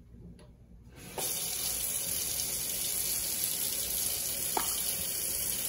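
Kitchen tap turned on about a second in and running steadily.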